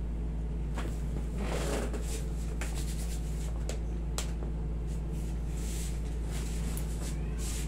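Scattered soft clicks and a brief rustle of hands moving over skin, hair and clothing, the rustle about a second and a half in, over a steady low hum.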